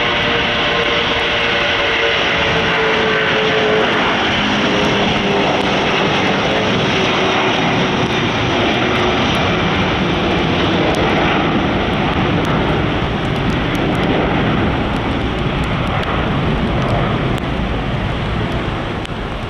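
Airbus A330-200 jet airliner's twin engines at take-off thrust as it lifts off and climbs away: a loud, steady roar with a whine that falls in pitch over the first few seconds, easing slightly near the end.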